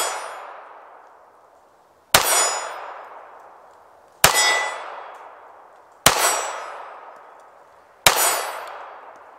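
Four pistol shots from a Seecamp LWS32 .32 ACP pocket pistol, spaced about two seconds apart. Each is followed by the ringing clang of a steel plate target being hit, which fades over a second or two.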